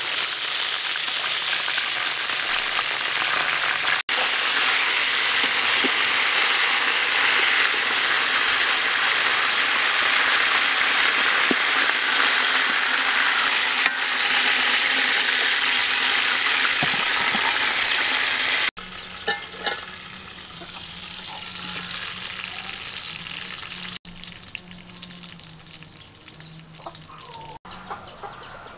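A whole chicken frying in hot oil in a large aluminium pot, with a loud, steady sizzle and the occasional scrape of a metal spatula turning it. About two-thirds of the way through the sizzle cuts off abruptly, leaving much quieter outdoor background.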